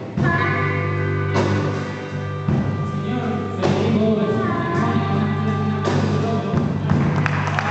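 A blues band playing, with a sustained bass line under guitar and voice and a cymbal crash about every two seconds.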